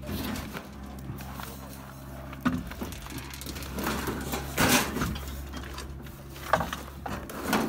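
Knocks and rustling as wooden furniture and plastic sheeting are handled, with several knocks and the loudest a little past the middle. A steady low hum runs underneath.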